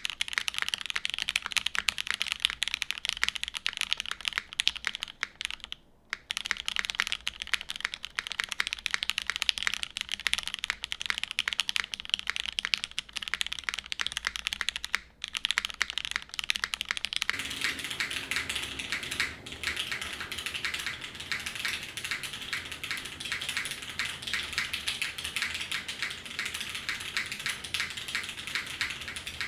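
Custom mechanical keyboard being typed on continuously: a GS case with a UHMWPE plate, Gateron Ink linear switches lubed with 205g0, GMK keycaps and Cherry clip-in stabilizers. A rapid patter of keystrokes breaks off briefly twice. About two thirds of the way in the typing turns denser and fuller.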